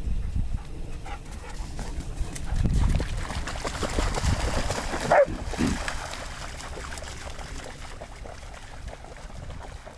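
A Beauceron gives one short yelp that falls steeply in pitch about five seconds in, while the dogs splash through shallow water, over a low rumble of wind on the microphone.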